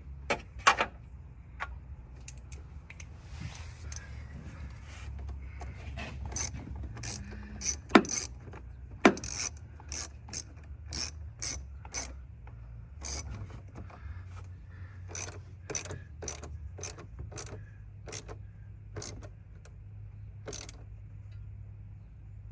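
Ratchet wrench clicking in irregular runs of sharp clicks while working the fasteners of a truck battery, over a low steady hum.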